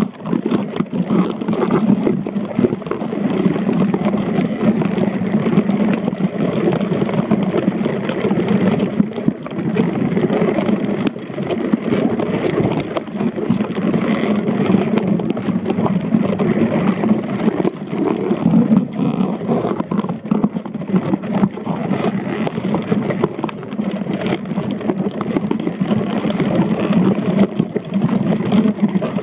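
Muffled, steady underwater rumble picked up through a submerged camera's waterproof housing, with many small clicks and scrapes scattered through it.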